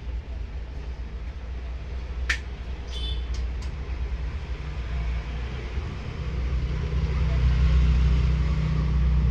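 A steady low rumble that grows louder in the second half, with a sharp click about two seconds in and a few short high chirps just after.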